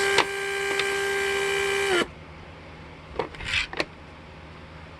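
Mercedes W140 central-locking pneumatic (PSE) pump's electric motor running on the bench with a steady whine, a click just after the start, then cutting off abruptly about two seconds in once it has built enough pressure. A few faint clicks follow.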